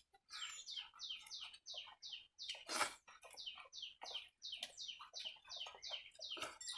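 A small bird chirping over and over, about three short falling chirps a second. A brief, louder noisy sound comes about halfway through.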